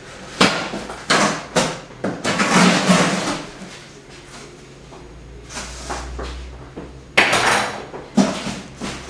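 Cardboard shipping box being cut open with a large kitchen knife and its flaps and inner box handled: a series of sharp cardboard knocks and scrapes, with a longer scraping stretch about two to three seconds in and the loudest burst about seven seconds in.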